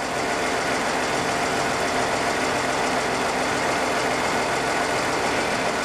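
Tractor engine running steadily while it drives the hydraulics that retract the slope mower's boom extension.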